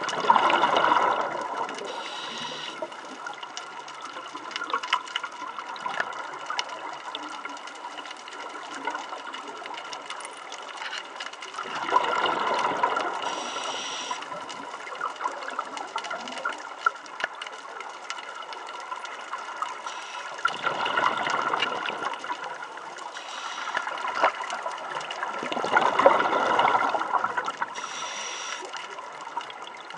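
Scuba regulator breathing underwater: four loud bursts of exhaled bubbles several seconds apart, some followed by a short high hiss of inhaling through the regulator, over a steady underwater background with a faint fixed hum.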